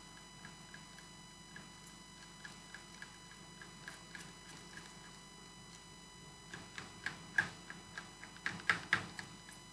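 Spatula stirring rosin into alcohol in a container to make liquid flux: light, irregular taps and clicks, with a run of sharper taps in the last few seconds.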